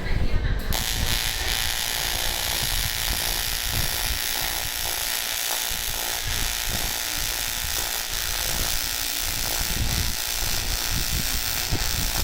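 TIG welding arc on aluminium, a steady buzzing hiss that starts about a second in and holds evenly, typical of the AC arc used for aluminium.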